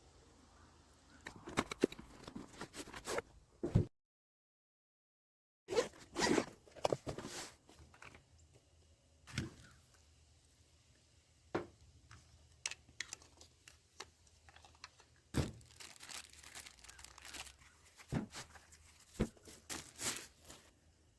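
Unboxing handling: packaging being torn and rustled, a zipper on the jump starter's soft case, and scattered light thunks as things are set down, with a short break of dead silence about four seconds in.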